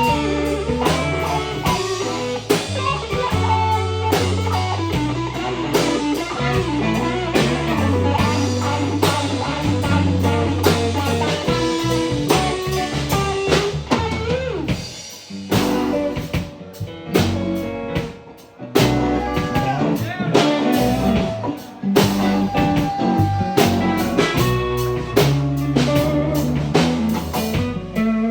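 Live band playing an instrumental break in a blues style: a guitar lead with bending notes over bass and drum kit. The playing thins out briefly a little past the middle.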